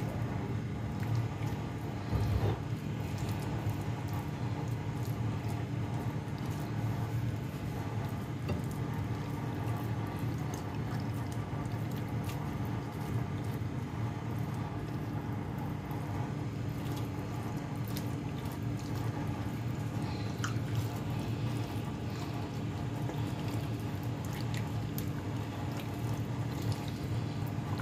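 Hands squishing and rubbing a wet yogurt-and-spice marinade into a whole raw chicken, with soft sticky clicks over a steady low hum.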